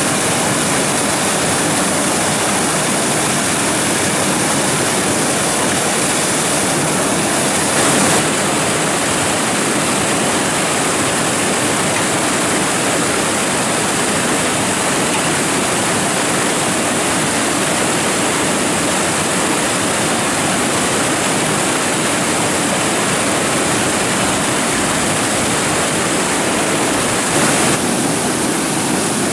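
Steady rushing of flowing water, with a slight change in its tone about eight seconds in and again near the end.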